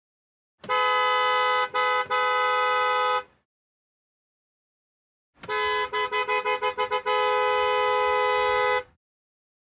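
Car horn honking: a long blast broken by two brief gaps, then silence, then a quick string of short toots that runs into one long held honk.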